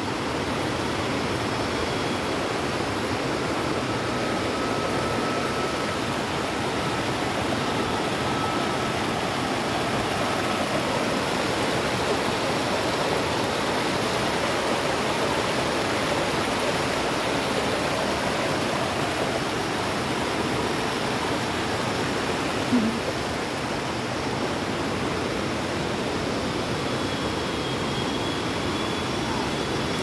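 Rapids of a shallow rocky river: water rushing steadily over and between boulders, an even, unbroken rush.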